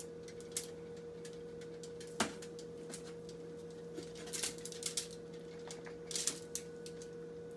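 Hands handling sliced cooked beef tongue on an aluminium-foil-lined tray: a few scattered crinkles and taps of foil, over a steady background hum.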